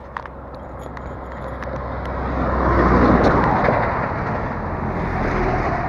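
A motor vehicle passing by on the highway: tyre and engine noise swells to its loudest about three seconds in, then fades away.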